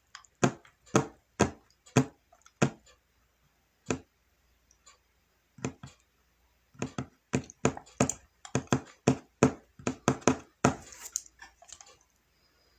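A series of sharp clicks or taps close to the microphone. They come about half a second apart at first, then in a quicker, irregular run from about seven seconds in, followed by a short rustle near the end.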